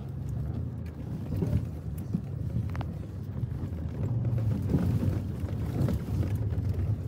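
Vehicle engine running at low speed while the tyres crawl over a rocky dirt trail, heard from inside the cabin: a steady low rumble with scattered knocks and rattles, and one brief high squeak about three seconds in.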